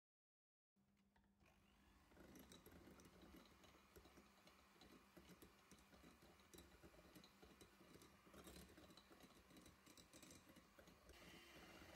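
Near silence: faint low hum with scattered light clicks and ticks, after a second of dead silence at the start.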